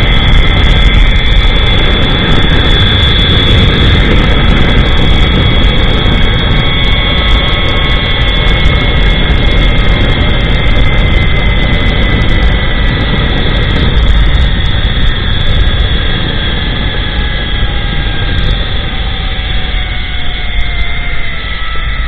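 Zip-line trolley pulleys running fast along the steel cable: a steady whine over heavy wind rush on the microphone. Several tones in the whine slowly fall in pitch over the last ten seconds as the trolley slows toward the landing.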